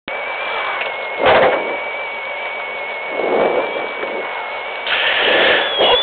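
Renault Sandero rally car's engine running while stationary at the stage start, heard from inside the cabin, with a steady high whine over it and two short louder swells, about a second in and near the end.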